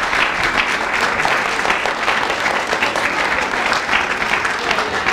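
Audience applauding steadily: dense, continuous hand-clapping from a theatre crowd.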